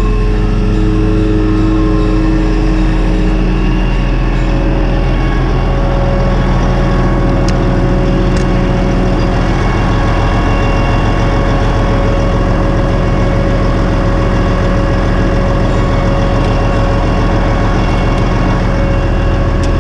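Semi truck's diesel engine idling steadily, a low, even hum that holds the same speed throughout.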